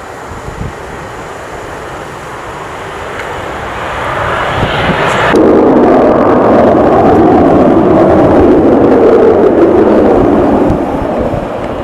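Panavia Tornado's twin RB199 jet engines passing close: a jet roar swells from about four seconds in, turns suddenly very loud about a second later, and holds for some five seconds before easing off near the end.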